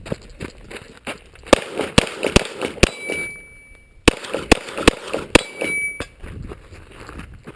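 Rapid gunfire in two quick strings, about four or five shots each, with steel targets ringing after hits.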